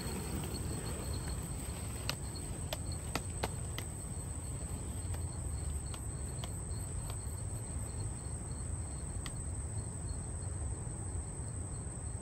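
Outdoor ambience of insects chirring in the grass, a thin pulsing high tone, over a steady low rumble, with a few faint clicks about two to three seconds in.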